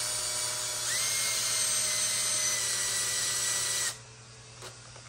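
Makita cordless drill spinning the threaded screw of a valve spring compressor, backing it out to let the valve spring up onto its freshly set locks. The motor runs steadily, speeds up about a second in and stops short about four seconds in, followed by a light click or two.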